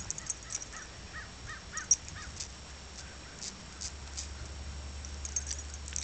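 A bird calling repeatedly in short, quick chirps, several a second, for the first couple of seconds, with scattered sharp high ticks.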